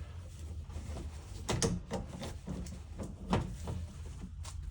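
Metal tools and gas fittings being handled while a gas shut-off valve is fitted: a few sharp clicks and knocks over a steady low hum.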